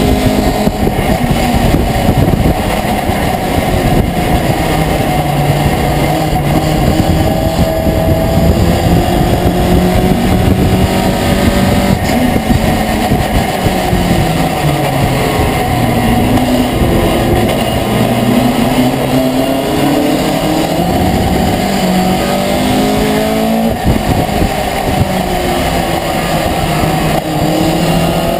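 Racing pickup truck's engine heard from inside its cab at race speed, the engine note climbing and falling again and again as it accelerates and slows for corners, over constant road and wind noise.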